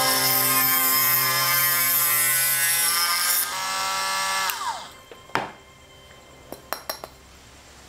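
Handheld rotary tool drilling a hole into a sea urchin shell: a high whine with a gritty grinding noise. About three and a half seconds in the grinding stops while the motor runs on for a moment, then it is switched off and its whine falls away. A few light clicks follow.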